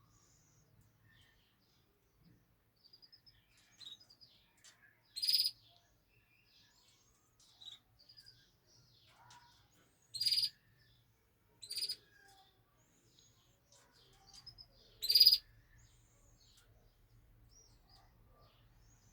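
Caged canaries calling: four loud, short, high chirps about 5, 10, 12 and 15 seconds in, with faint twittering between.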